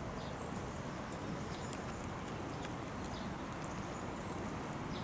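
Steady outdoor background noise, mostly a low rumble, with a few faint ticks and no distinct sound event.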